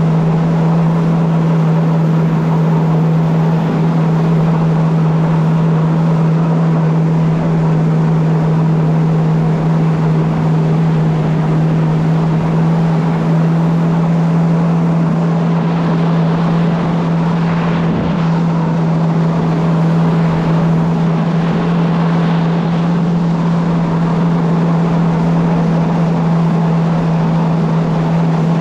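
A vehicle engine running at a constant speed: one steady low drone with a haze of rushing noise over it, unchanged throughout, and a brief swell of hiss with a faint knock about eighteen seconds in.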